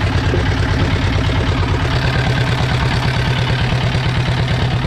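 Fishing boat's engine running steadily with an even, fast throb.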